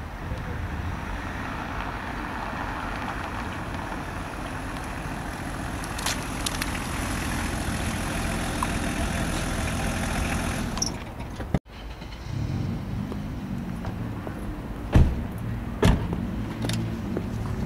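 A BMW 5 Series saloon drives slowly across a paved car park, its tyres and engine making a steady noise. After a sudden cut, the engine idles with a low hum, and two sharp thumps like car doors shutting come about a second apart near the end.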